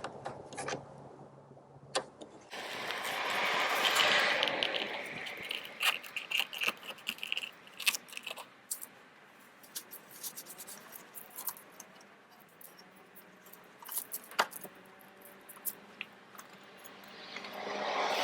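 Metal clinks, knocks and scrapes of hand tools and parts being handled during car repair work, with a short high squeak about six seconds in.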